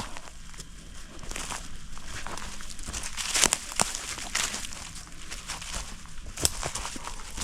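Footsteps crunching and rustling through dry leaf litter and brush on a steep downhill slope, with scattered snaps and crackles of twigs.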